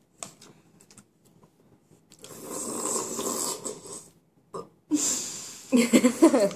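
Loud, noisy slurping of soupy macaroni and cheese from a spoon, in two long draws, the second running into a wavering vocal sound near the end.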